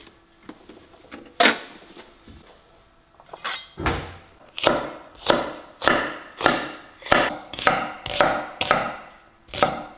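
Kitchen knife chopping shallots and red chillies on a wooden end-grain cutting board: a steady run of about ten sharp knocks, roughly two a second, from about four and a half seconds in. A single sharp wooden knock comes about a second and a half in.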